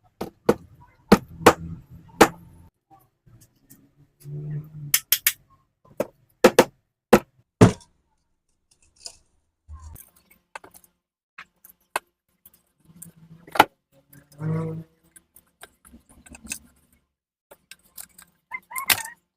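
Irregular sharp clicks and light clinks of small hard parts and tools being handled, with a few short low hums between them.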